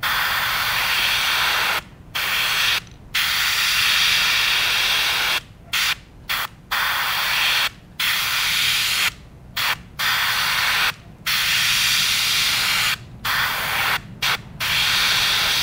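Airbrush spraying paint in about a dozen short hissing bursts as the trigger is pressed and released, with brief pauses between bursts.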